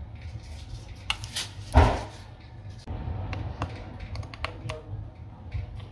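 Small clicks and taps of a metal pry tool working on the opened phone's internal parts and connectors, with one louder thump about two seconds in, over a steady low hum.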